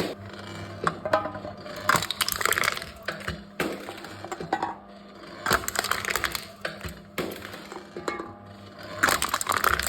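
Aluminium drink cans crushed by a crushing machine: three bursts of crackling, crumpling metal about three and a half seconds apart, with scattered smaller clicks between, over a steady low hum.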